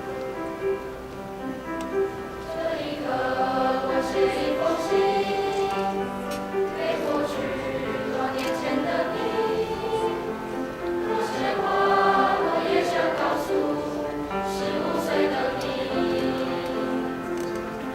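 A high-school choir singing in harmony with piano accompaniment, the voices growing fuller and louder about three seconds in.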